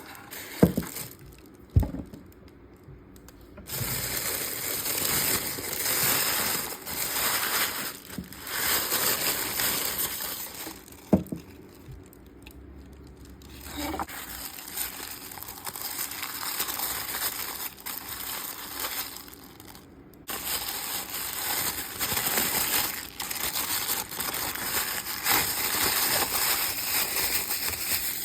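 Packaging being unwrapped by hand: crinkling and tearing in bursts of a few seconds with short pauses between, and a few sharp clicks or taps, one about a second in and one near the middle.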